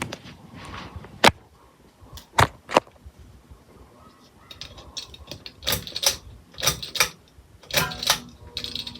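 Irregular sharp mechanical clicks: a few single clicks in the first three seconds, then a run of clattering clicks near the end.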